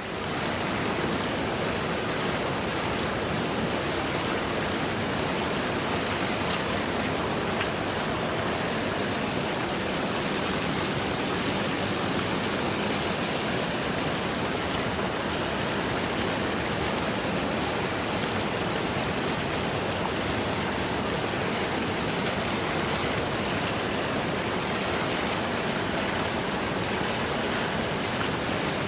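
Steady, unbroken rush of running water that fades in at the very start.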